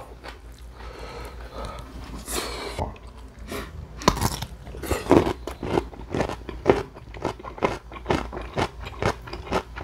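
Close-up mouth sounds of someone eating crunchy chonggak kimchi (ponytail-radish kimchi): a bite about four seconds in, then crunchy chewing at about two crunches a second.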